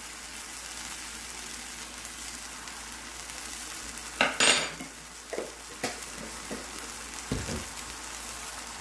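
A butter, hot sauce and honey sauce sizzling steadily in a skillet over low heat. A few knocks and clinks of a utensil against the pan come from about four seconds in.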